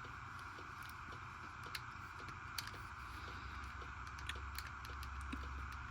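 Scattered light clicks of a folding multi-tool being handled as its parts are opened and closed, over a steady background hiss.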